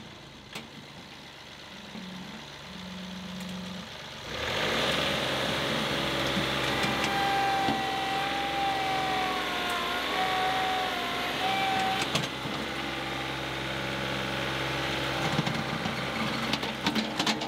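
John Deere 2038R compact tractor's three-cylinder diesel running, jumping louder about four seconds in as it is throttled up and driven forward. A high whine wavers over the engine in the middle as the loader bucket is pushed into the ground under load. Near the end there is crackling as the bucket peels up the sod.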